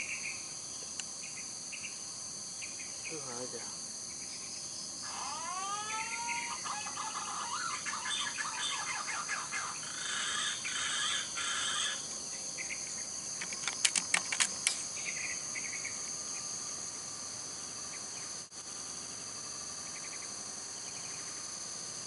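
Steady high-pitched insect drone with birds chirping now and then, including a few whistled gliding calls about five to seven seconds in. A quick run of sharp clicks comes about fourteen seconds in.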